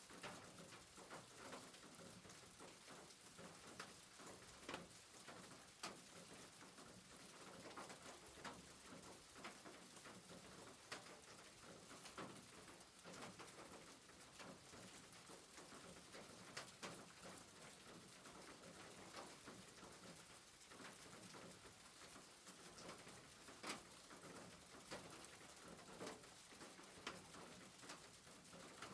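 Faint rain on a rooftop: a steady hiss of rainfall, with irregular sharp taps of drops striking the roof.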